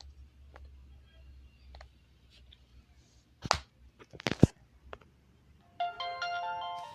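A few sharp clicks, then near the end a ringtone melody of simple electronic tones starts playing from a basic Samsung GT-E1195L-type feature phone's speaker.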